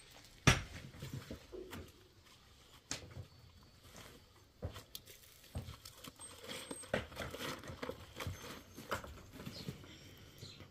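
Scattered light knocks and clicks with faint rustling, one sharp knock about half a second in much louder than the rest.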